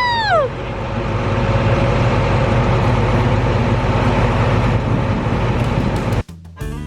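Large farm machine's engine running steadily, a loud, even drone. A high 'woohoo!' shout ends just after the start, and the drone cuts off abruptly near the end when music begins.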